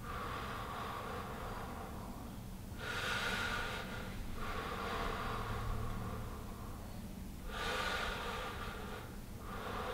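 A man breathing slowly and deeply, in and out, in long airy breaths of a couple of seconds each with brief pauses between them.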